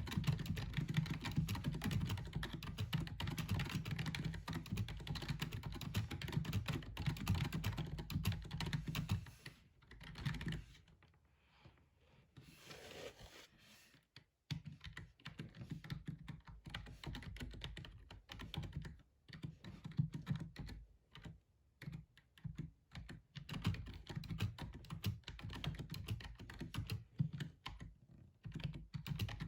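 Fast typing on a gaming keyboard: a dense run of keystrokes that drops off about ten seconds in, then, after a lull of a few seconds, resumes as more spaced-out key presses.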